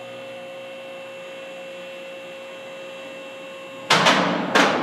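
Hydraulic power unit of a chain-drive four-post lift running steadily as the lift rises, cutting off about four seconds in. Two loud metal clanks follow, a little under a second apart, as the lift settles onto its safety locks.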